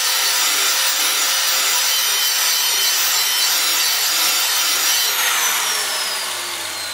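Corded angle grinder sharpening the steel blade of an Ariens Razor 21 push mower: a steady, loud grinding. About five seconds in it is switched off and the motor winds down with a falling whine.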